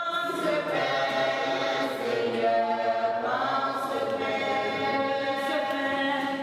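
A choir singing long held notes.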